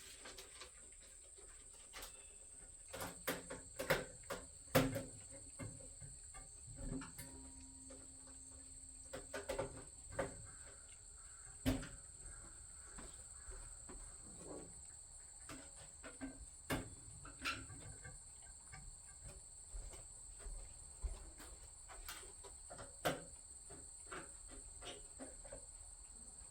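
Scattered light clicks and taps of screws and small metal parts being handled and driven by hand into a Pit Boss 5 Series vertical smoker's sheet-metal panels during assembly. A faint steady high-pitched tone sits underneath.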